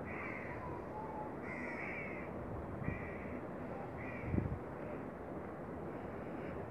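A crow cawing four or five times in the first few seconds, short harsh calls about a second apart, over a steady hiss.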